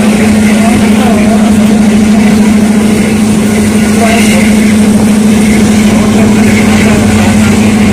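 Vehicle engine running steadily as the vehicle travels, a constant low drone with road noise and no change in speed.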